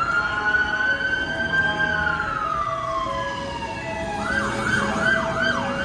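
Fire engine siren. A long wail falls slowly in pitch, then switches to a fast rising-and-falling yelp of about three sweeps a second for the last second and a half.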